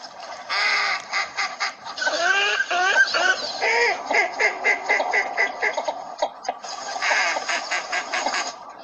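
Ducks, presented as northern shovelers, calling continuously. Fast runs of short clipped notes are mixed with quacks that bend in pitch, broken by a few brief pauses.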